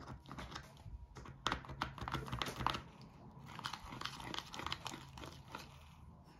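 Spoon stirring and mashing thickening slime in a plastic measuring cup: irregular scraping, clicking and squishing in short clusters.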